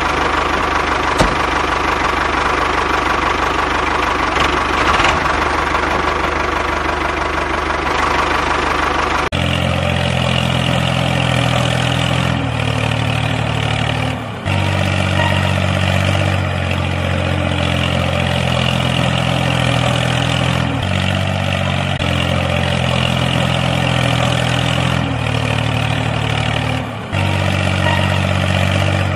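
Tractor engine idling. About nine seconds in the sound cuts abruptly to a lower, steadier running note that repeats in a loop.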